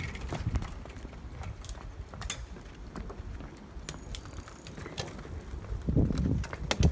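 Bicycle rolling along a wooden plank boardwalk: irregular clicks and knocks as the tyres cross the boards, over a low rumble that grows louder about six seconds in.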